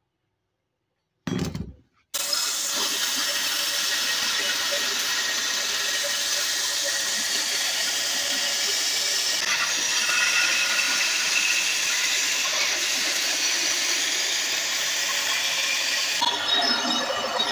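Belt sander running with the rusty steel blade of a meat cleaver pressed against the moving abrasive belt, grinding the rust off: a steady, loud grinding hiss. It starts abruptly about two seconds in.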